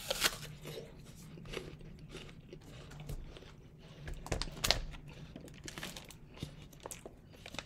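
Biting into a raw apple with a crisp crunch just after the start, then chewing with scattered crunches, a louder cluster of them about four and a half seconds in.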